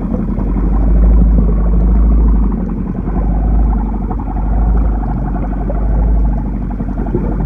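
Muffled low underwater rumble recorded by a phone sealed in a waterproof plastic bag while snorkeling.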